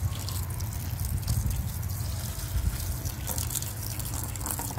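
A stream of water pouring into a plastic tub of foaming degreaser solution, splashing and trickling steadily, with a low rumble underneath.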